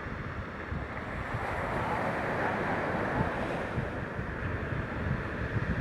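Steady rushing noise that swells slightly a couple of seconds in, with no distinct firework bursts.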